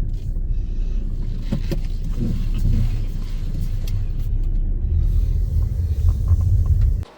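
Car interior driving noise: a steady low rumble of road and engine heard from inside the cabin, cutting off abruptly near the end.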